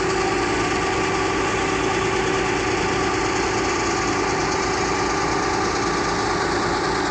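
Fire truck engine running steadily to drive its water pump while the roof-mounted water cannon sprays, a constant hum with a steady whine.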